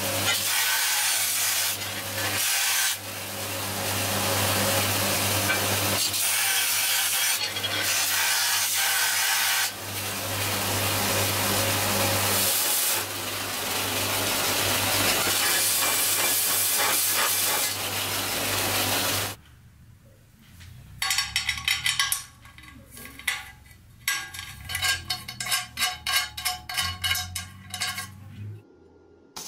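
Vertical belt grinder running with its steady motor hum while a steel plate is pressed against the belt, a loud gritty grinding that eases briefly now and then as the piece is lifted. About two-thirds of the way in the grinding stops, and a quieter series of short, uneven scraping bursts follows.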